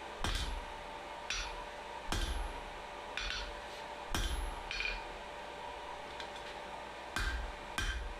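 Hand hammer striking steel on an anvil, eight blows at roughly one a second with a pause of about two seconds after the sixth, as 3/4-inch sucker rod is forged down into a tong blank. A faint steady hum runs underneath.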